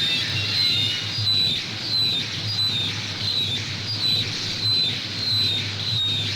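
Japanese noise music from a vinyl record: short, high, bird-like squeaks repeating about one and a half times a second over a steady low hum and a haze of noise.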